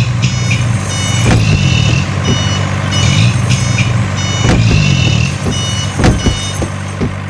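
Truck engine sound effect running steadily under repeated short electronic beeps like a reversing alarm, with a few sharp knocks.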